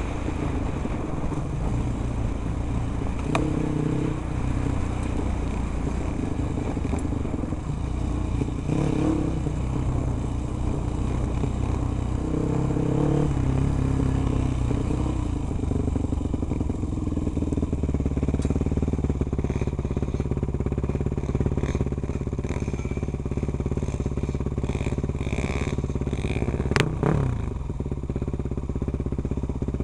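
Enduro motorcycle engine running, its pitch rising and falling with the throttle over rough ground for the first half, then steadier. Near the end a sharp rise and fall in pitch as a bike revs past close by.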